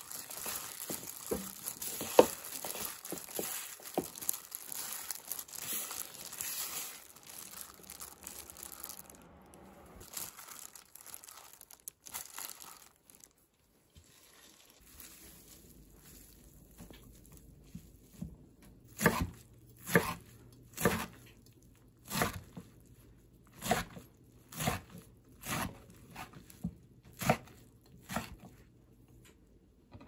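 Hands in a thin plastic glove mixing seasoned greens in a bowl, the glove crinkling and rustling for the first several seconds. Later comes a run of about ten soft thuds roughly a second apart as hands work blanched greens on a wooden cutting board.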